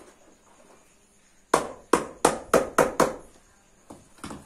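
Small hammer striking a carpet sheet: a quick run of six sharp blows, about four a second, starting about a second and a half in, then one lighter knock near the end.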